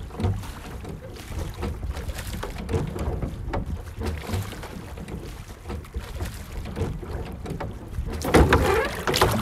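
Rowboat oars dipping and pulling through the water, with irregular splashes and a low steady rumble of water and wind. Near the end the oar splashes come louder and closer.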